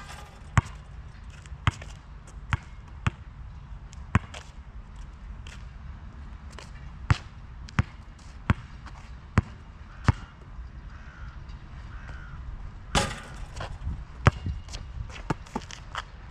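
Molten GB3800 basketball bouncing on an asphalt court: a string of single bounces, then steady dribbling at about one bounce every 0.7 s. About 13 s in, one louder, longer clattering hit as the ball strikes the rim and backboard on a shot, followed by more bounces.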